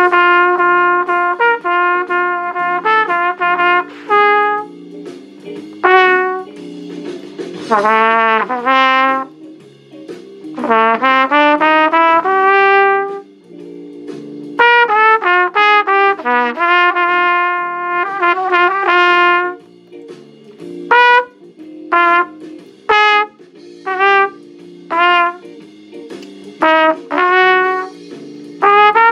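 Trumpet improvising blues phrases in B-flat over a 12-bar blues accompaniment, in runs of short notes and held notes with pauses between phrases. A few notes bend down and up in pitch about eight and eleven seconds in, while the backing chords carry on underneath.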